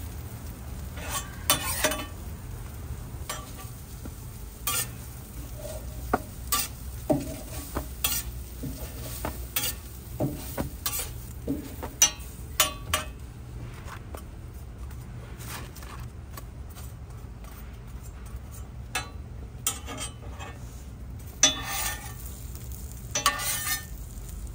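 Food frying on a street-toast griddle, with a metal spatula scraping and tapping the hot plate in sharp clicks scattered throughout. A steady low hum sits underneath.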